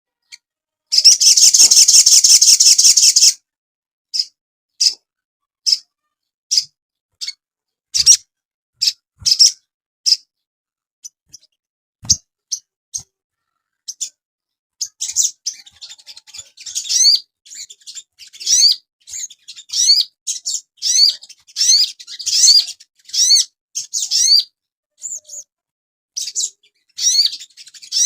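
Sogon bird calling. A loud, harsh rattling call starts about a second in and lasts about two seconds. Scattered short high chirps follow, and from about halfway a quick series of rising, sweeping whistled notes.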